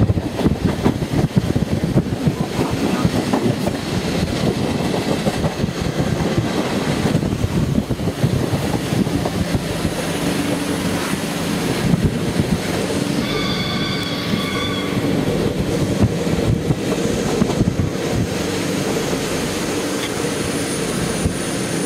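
Inside the carriage of an ALe 724 electric multiple unit on the move, heard as wheels clattering over points and rail joints for the first several seconds, then a steadier rolling rumble. A brief high, wavering squeal comes about two thirds of the way through.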